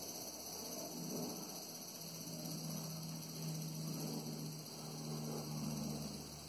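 Distant helicopter droning: a low steady hum that swells and fades in loudness every second or two.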